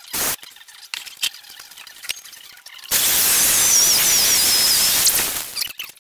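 Corded electric drill with a hole saw boring into a thick timber board for about three seconds, a loud, even cutting noise with a wavering high whine. It is preceded by a short burst from a cordless drill right at the start.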